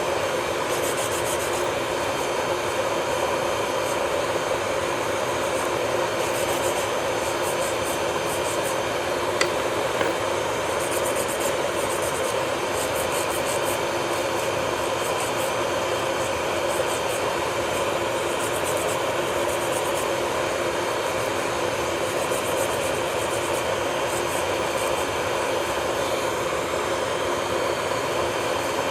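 Electric nail drill running steadily, its high whine constant, with the hiss of the bit grinding against the nail coming and going in short passes.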